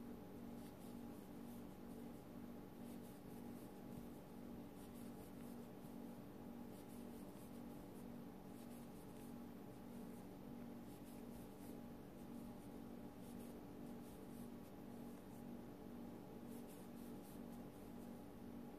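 Faint scratchy rustle of cotton yarn rubbing on a metal crochet hook as half double crochet stitches are worked along a row, with small soft ticks scattered throughout. A steady low hum sits underneath.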